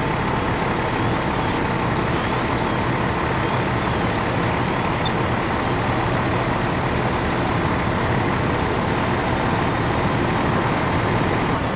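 Fire engine running at the tanker fire: a steady, loud rumbling noise with a faint steady whine through it.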